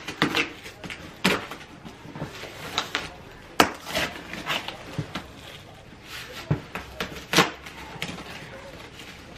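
Cardboard of a large shipping box being ripped and torn open by hand: a run of irregular rips and crackles, with sharper tears about three and a half seconds in and again about seven and a half seconds in.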